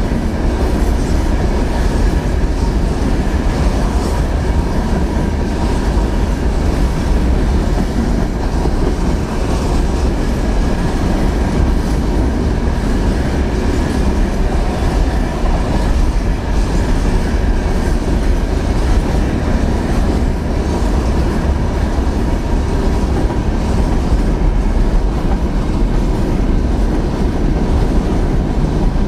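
A train rolling past on the rails, a steady, unbroken rumble of wagon wheels with clickety-clack over the rail joints, and a heavy low rumble beneath it that is typical of wind on the microphone.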